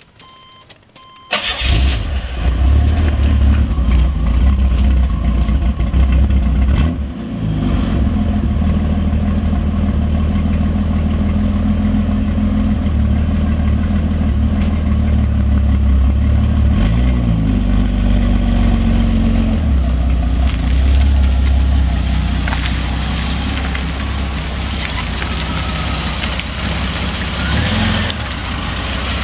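1980 Buick Skylark engine starting about a second in, then running loud at a fast idle. The engine note dips briefly a few seconds later and shifts pitch again midway before settling into a steady idle.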